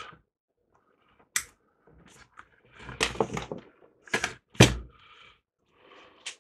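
Clicks and knocks of hands handling a capacitor and test connections on a workbench, setting up a quick capacitance test. Irregular sharp clicks and clatters, with one heavier thunk a little past halfway.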